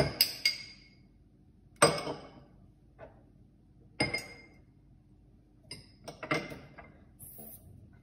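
Glassware clinking: a small glass bowl and a metal spoon knocking against a drinking glass as dry ingredients are tipped in. A handful of separate ringing clinks, the loudest about two seconds in, another about four seconds in, and a quick cluster of smaller ones near the end.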